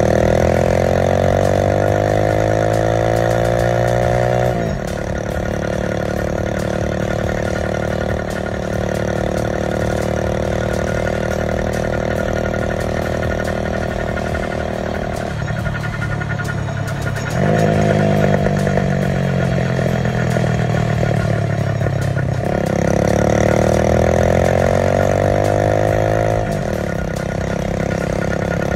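Vehicle engine pulling under way, its pitch climbing for several seconds and then dropping abruptly at gear changes, with a long steady stretch of cruising in the middle.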